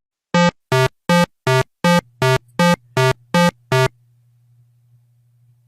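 Ten short synthesizer notes at one pitch, evenly spaced at a little under three a second. A faint low hum comes in under the later notes and carries on after them.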